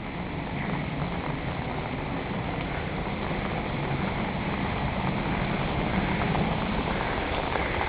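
Heavy rain falling on wet pavement: a steady, dense hiss that grows slowly a little louder.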